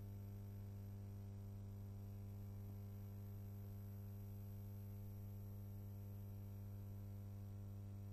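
Faint, steady electrical mains hum, low-pitched with a light hiss, on an otherwise silent soundtrack.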